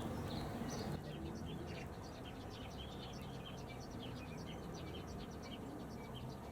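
Small birds chirping in the background: a busy run of short, high chirps over a low, steady rumble.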